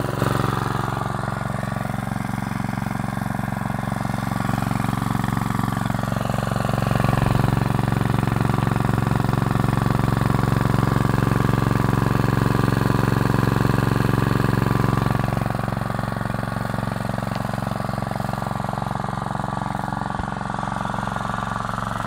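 Lifan small single-cylinder petrol engine driving a centrifugal water pump, running steadily; it gets louder for several seconds in the middle, then settles back.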